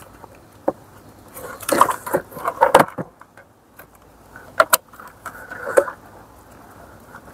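Plastic wiring-harness connectors being handled and pushed into a Mercedes C-Class SAM unit: scattered sharp plastic clicks and rattling of connectors and wires, in two busier bursts, one about two seconds in and one around five seconds in.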